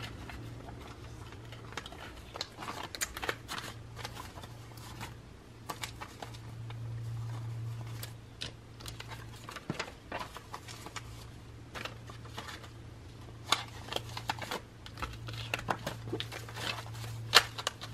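Paper banknotes rustling and crinkling in irregular short bursts as a stack of bills is handled by hand: taken out of a cash binder's pouch, spread out and gathered up. A steady low hum runs underneath.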